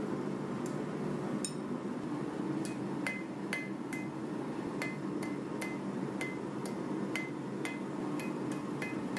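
Hand hammer forging red-hot W1 steel drill rod on an anvil: blows at about two a second, each with a short metallic ring, starting about a second and a half in, over a steady low hum.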